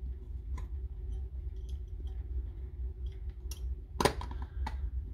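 A few small sharp clicks and taps from parts being handled in an opened cordless-tool battery pack, the loudest about four seconds in, over a steady low hum.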